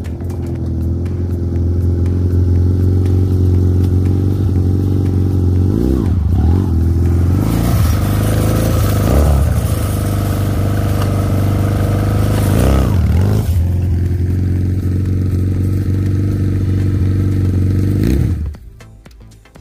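Chinese 250cc single-cylinder ATV engine running as the quad is ridden, its pitch rising and falling several times with the throttle. It is loudest as it passes close about halfway through, and the sound cuts off abruptly near the end.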